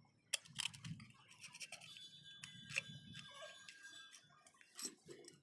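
Scattered light clicks and clinks, some briefly ringing, with faint handling noise: small metal parts and hand tools being worked on a brush cutter's engine.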